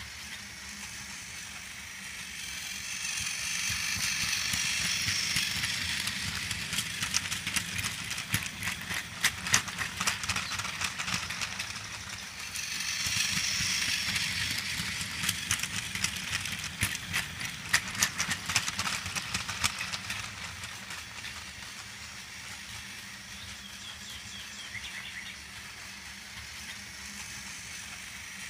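Motorized toy Thomas the Tank Engine running on plastic track, pulling eight plastic cars: a steady motor whir whose whine grows louder twice as the train passes close. After each swell comes a spell of rapid clicking and rattling from the wheels and cars.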